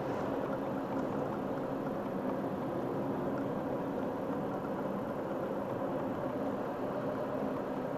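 Car engine and tyre-on-road noise heard from inside the cabin while driving at a steady speed: a constant hum that does not change.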